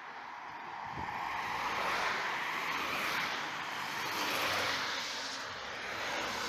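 Road vehicles, among them an ambulance, driving past close by: a rush of engine and tyre noise that swells as each one passes, loudest about two and about four seconds in.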